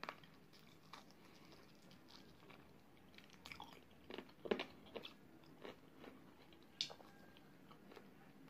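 A person biting and chewing fried chicken wings coated in spicy sauce: scattered short bites and chewing sounds, the sharpest about four and a half seconds in and again near seven seconds.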